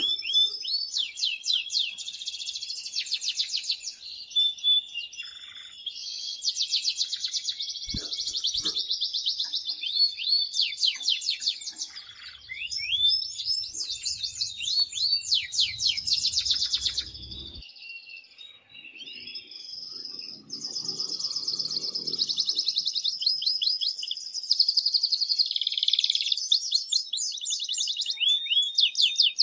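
Male canary singing loudly: long runs of fast trilled notes and rolls, with a short pause about two-thirds of the way through.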